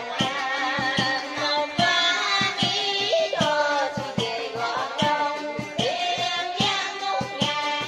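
A woman singing a Vietnamese song into a microphone, her melody held with vibrato, over an accompaniment with a steady beat.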